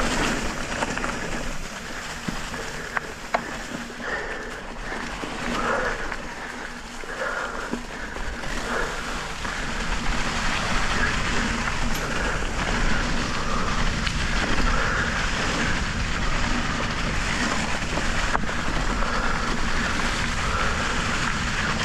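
Electric mountain bike rolling along a dirt trail covered in dry leaves: steady tyre noise through the leaves mixed with wind noise, with a few sharp clicks and rattles from the bike.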